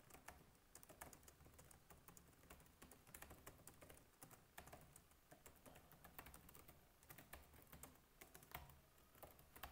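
Computer keyboard typing: a faint, quick, irregular run of key clicks.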